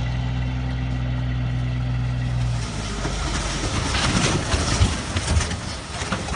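A heavy vehicle's engine running with a steady low drone, which drops away after about two and a half seconds into rough, noisy rumbling with many sharp cracks and knocks.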